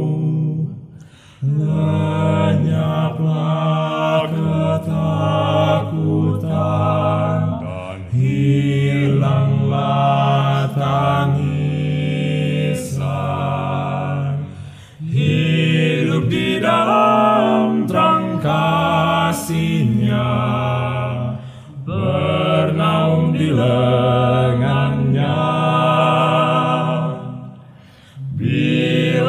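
Male vocal quartet of two tenors, a baritone and a bass singing a hymn a cappella in Indonesian, in close harmony with long held chords. The phrases are broken by short pauses for breath.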